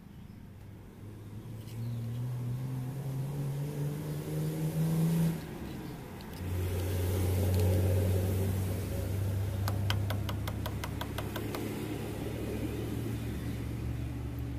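Motorcycle engine running: its note climbs slowly for a few seconds, drops away about five seconds in, then settles to a steady lower idle. Partway through, a quick run of clicks, about eight a second, lasts under two seconds.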